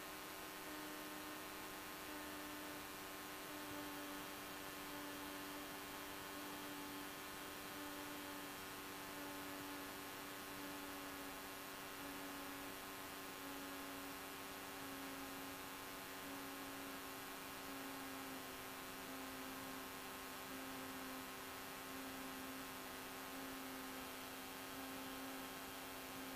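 Faint steady electrical hum on the Cessna 172's intercom audio line, with one tone drifting slowly lower.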